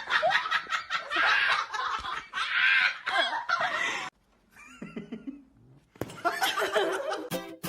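A person laughing hard in quick, breathy bursts for about four seconds. After a short pause comes more laughter, and a guitar strum starts near the end.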